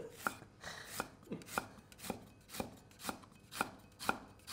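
Chinese cleaver slicing fresh ginger thinly on a round wooden chopping block, the blade knocking on the board in an even rhythm about twice a second.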